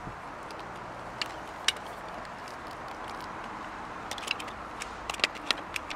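Caulking gun being handled and loaded with a tube of roof cement: scattered sharp clicks and taps from the plunger rod and cartridge, with a cluster of them in the last couple of seconds, over a steady outdoor hiss.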